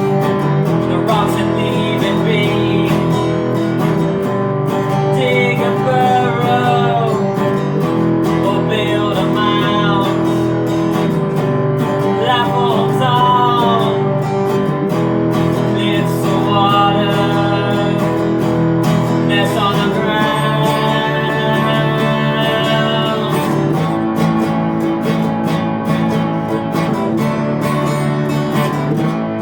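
Upbeat rock song for children: strummed acoustic guitar with a melody that bends in pitch over it.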